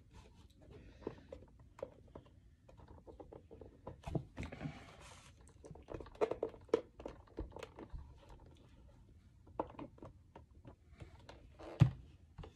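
Scattered light clicks, taps and brief rubbing of hands handling the plastic casing of a GE portable AM/FM radio, with a sharper knock near the end.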